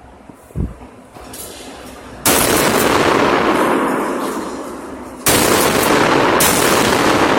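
Two shotgun blasts about three seconds apart, each a sudden very loud crack followed by a long ringing decay. A short low thump comes shortly before the first.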